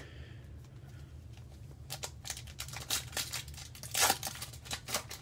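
Wrapper of a Bowman baseball card pack crinkling and tearing as it is handled and opened by gloved hands: scattered crackles from about two seconds in, with a longer, louder tear about four seconds in.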